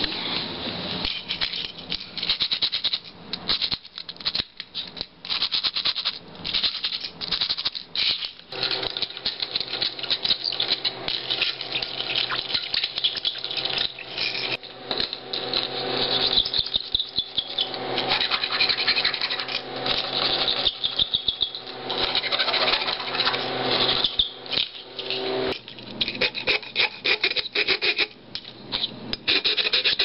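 Fingerboard wheels rolling and scraping back and forth over hard surfaces, with many small clicks and clacks. A steady low hum sits underneath from about a third of the way in until a few seconds before the end.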